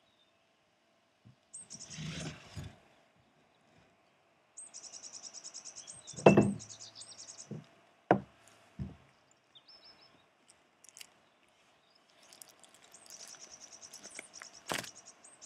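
Rapid, high-pitched chirping trills in three bouts, each a quick even run of pulses, with a few sharp knocks between them.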